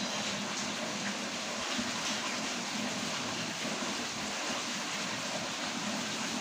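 Rain pouring down steadily, a dense, even hiss with no letup.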